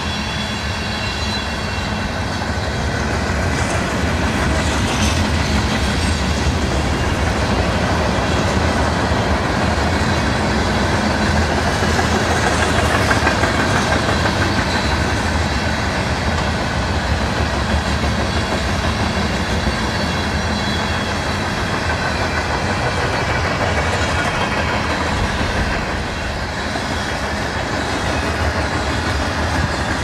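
Freight train cars rolling past: a steady rumble of steel wheels on the rails from a long string of covered hoppers and mixed manifest cars.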